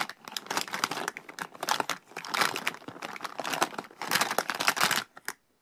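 Plastic makeup jars, compacts and boxes clattering and rustling against each other as a hand rummages through a plastic storage bin. The sound stops abruptly near the end.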